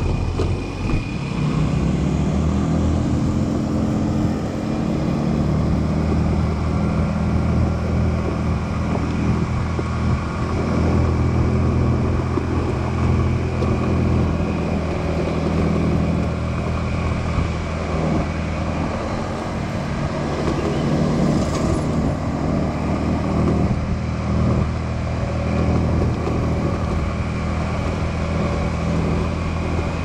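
Motorbike engine running under way, its pitch climbing in the first couple of seconds and then holding fairly steady, over a continuous rush of wind and road noise.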